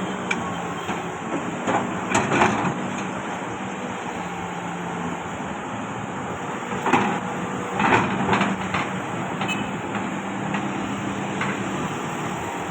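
Excavator engine running steadily, with bursts of clanking and scraping from the bucket working the soil about two seconds in and again around seven to eight seconds in.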